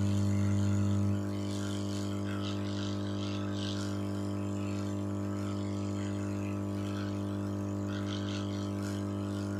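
Hot air rework gun blowing on a phone circuit board: a steady electrical hum with a rushing hiss of air, dropping a little in level about a second in. The board is being warmed to dry it out after cleaning off water damage.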